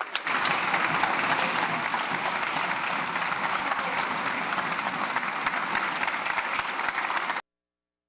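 Applause from a crowd of people clapping, dense and steady. It cuts off suddenly about seven seconds in.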